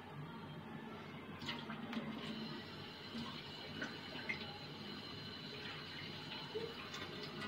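Faint gurgling of spiced water heating in a steel pot, with a few light clicks scattered through.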